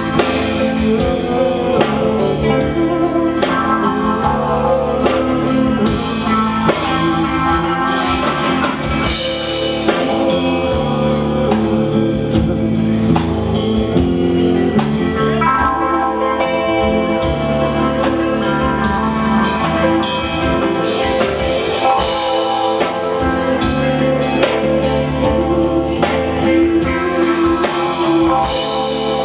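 Live rock band playing: guitars and a drum kit carry a steady, dense passage with cymbals throughout.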